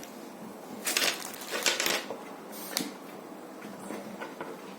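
Metal clinks and scrapes of hands and tools working on a microwave oven's metal chassis and parts, with two louder scraping rattles about one and about one and a half seconds in and a few lighter ticks after.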